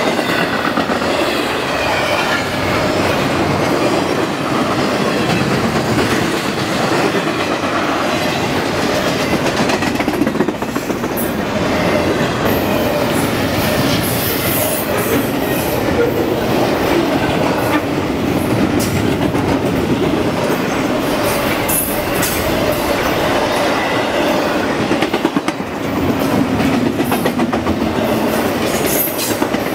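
Double-stack intermodal container cars rolling past: a steady rumble of steel wheels on the rails, with the clacking of wheels over the rail joints.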